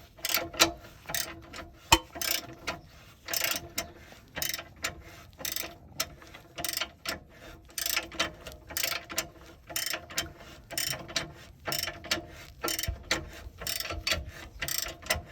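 Hand ratchet clicking steadily, about two to three clicks a second, as it is swung back and forth to back out a rusted bolt from the front hub's lower ball joint.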